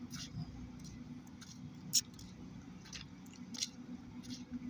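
Footsteps on a gritty concrete surface at a walking pace, a short scuffing crunch roughly every half to two-thirds of a second, over a faint steady hum.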